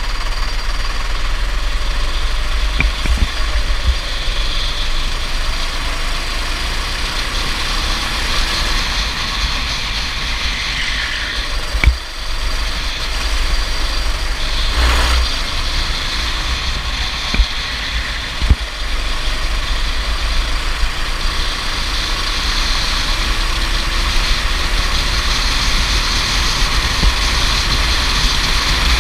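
Go-kart engine running continuously at speed with a strong deep rumble underneath, the pitch dipping and rising now and then. A few sharp knocks come near the middle.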